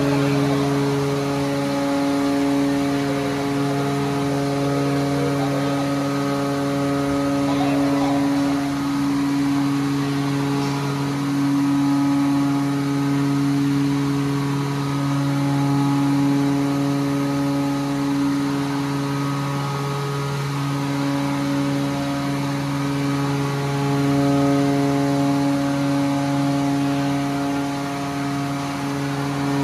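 A container ship's electro-hydraulic steering gear running with its pump on, a steady machine hum made of several pitched tones. Some of the higher tones fade out and return a few times while the tiller swings the rudder.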